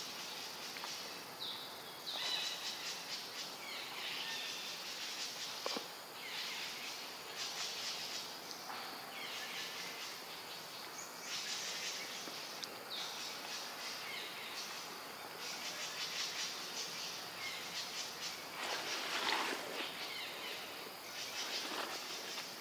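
Outdoor ambience of insects buzzing in repeated high-pitched bursts about a second long, with a few short bird chirps.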